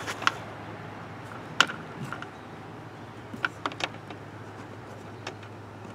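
Scattered light clicks and taps of a small plastic pipe fitting being handled and turned by hand on a worktable, about seven in all, over a low steady hum.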